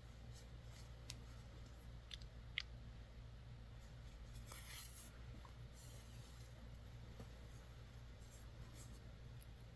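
Faint rustling and a few light ticks of yarn and a sewing needle being drawn through knitted fabric while a knitted slipper is seamed by hand, with one longer rustle about halfway, over a steady low hum.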